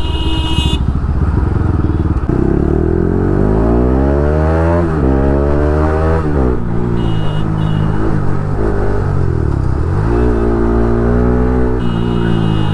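Bajaj Pulsar RS 200's single-cylinder engine riding through city traffic: it revs up through a gear change between about two and six seconds in, drops back, and picks up again near ten seconds. Short vehicle horn beeps sound near the start, around seven seconds in, and near the end.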